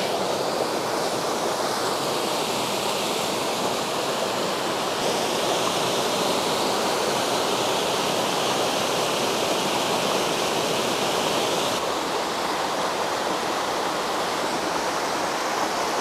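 Water rushing steadily over the rocky cascades of a small woodland brook running full after days of rain. The tone of the rush shifts slightly about five seconds in and again about twelve seconds in.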